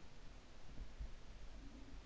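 Quiet background with a faint low rumble and a few soft low bumps.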